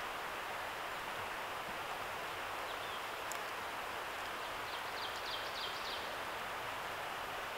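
Steady outdoor hiss of woodland background noise, with a small bird's quick run of about six high chirps about five seconds in.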